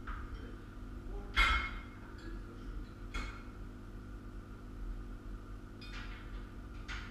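Metal clanks from steel sawmill-frame parts and tools being handled during assembly: one loud ringing clank about a second and a half in, a lighter knock around three seconds, and two more light knocks near the end, over a steady faint hum.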